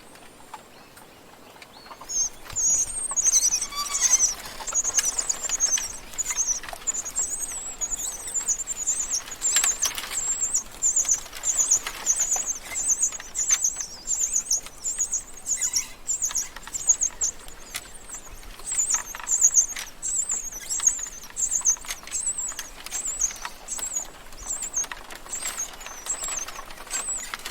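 Small birds chirping: a steady run of short, very high-pitched chirps, two or three a second, beginning about two seconds in.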